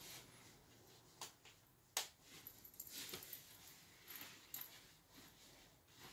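Quiet rustling of a fabric CAM Mila changing bag and its strap being handled and hung on a pram's handlebar, with a few light clicks from its fittings. The sharpest click comes about two seconds in.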